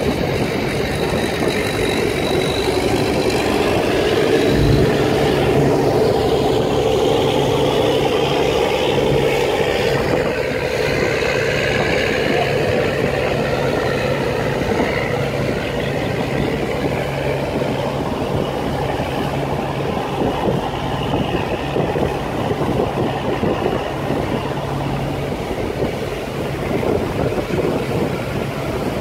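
Steady drone of river-boat engines, with wind and rushing water from a boat under way. A low steady hum comes in with a thump about five seconds in and drops out near the end.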